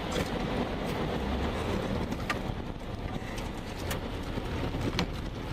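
Strong wind rushing steadily, with a few sharp ticks.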